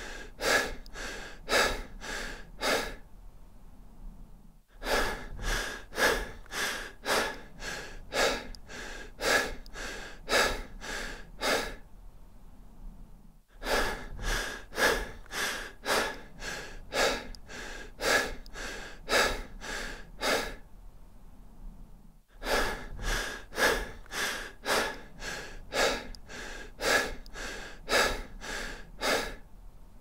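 A person breathing deeply and fast, quick breaths at about two to three a second, in runs broken by pauses of a second or two.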